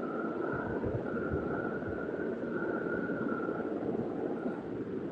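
Steady background hiss and rumble with a faint high whine that fades out about three-quarters of the way through.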